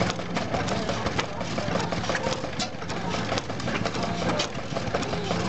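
1923 Ruston Hornsby 7 hp stationary engine running steadily, its valve gear and pump mechanism clicking rapidly over a low hum.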